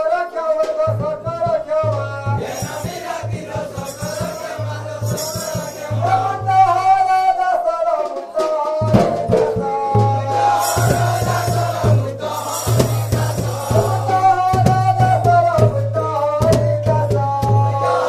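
Live danda nacha folk music from Odisha: a drum beat under jingling percussion and a wavering melody line, with a short break about eight seconds in.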